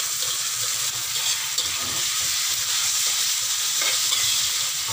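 Leafy greens and shredded cabbage sizzling in hot oil in a wok, stirred and turned with a metal slotted spatula that knocks against the pan now and then.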